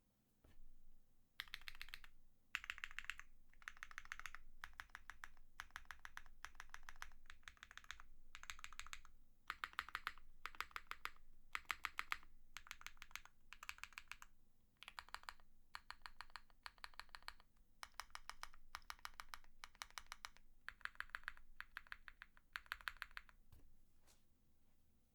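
Typing on a custom mechanical keyboard: an OwLab Mr. Suit with a POM plate and PE foam, lubed and filmed OwLab Tungsten switches and GMK Cafe keycaps. Rapid keystrokes come in short runs with brief pauses between them, starting about a second in.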